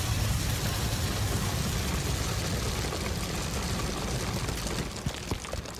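Film sound effect of a great mass of grain pouring down in an avalanche, a steady rushing noise that thins out near the end with a few small clicks.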